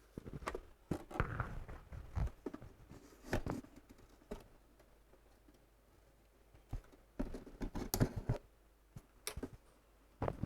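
Scattered clicks, taps and light scraping from handling the opened subwoofer's casing and parts, in two bursts with a quiet gap of about two seconds between.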